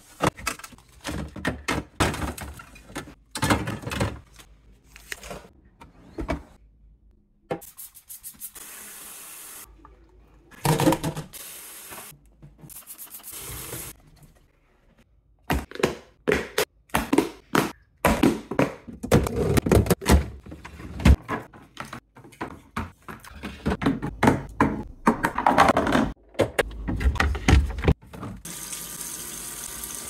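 Plastic fridge drawers and storage containers being handled: a rapid series of clicks, knocks and scrapes with short pauses between, and a kitchen faucet running near the end.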